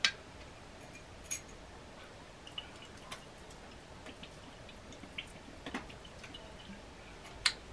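Sparse, faint clicks and taps from handling a sauce bottle: a sharper click right at the start as it is opened, then a few light knocks while it is held upside down and shaken over the pot.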